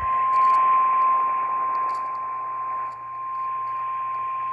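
Emergency Alert System attention tone on AM radio: a single steady high tone just above 1 kHz, the 1050 Hz warning alarm tone, over constant radio hiss. It signals that a severe thunderstorm warning is about to be read.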